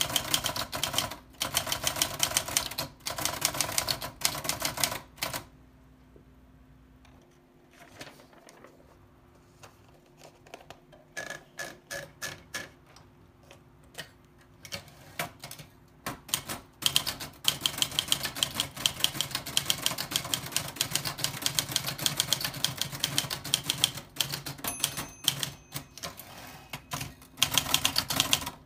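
Old typewriter being typed on in quick runs of sharp key strikes. About five seconds in the typing stops for roughly ten seconds, leaving only a few scattered soft clicks, then fast typing resumes.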